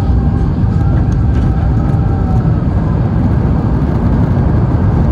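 Steady low rumble of an Airbus A350 airliner's engines and airflow heard from inside the passenger cabin during the approach to landing. A faint steady whine fades out about halfway through.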